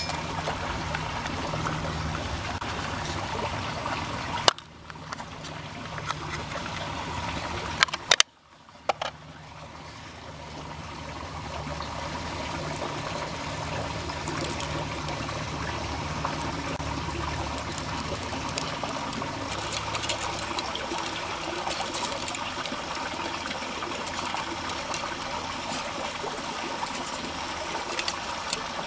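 Small creek waterfall trickling steadily. A few sharp clicks stand out about four and eight seconds in, with the water sound dipping briefly after each.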